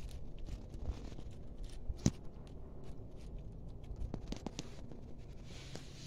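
Soft rustling and scattered small clicks from a hand-held phone camera being moved about and steps in grass, over a low rumble; one sharp click about two seconds in.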